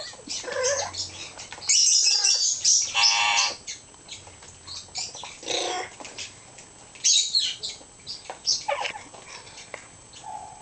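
Amazon parrot bathing in a bowl of water: short bursts of splashing as it dunks and flaps its wings, with a few short buzzy calls, one about three seconds in and another near six seconds.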